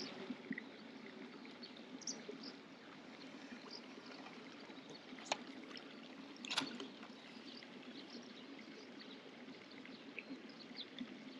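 Faint, steady trickle of running water, with two light clicks a little past the middle.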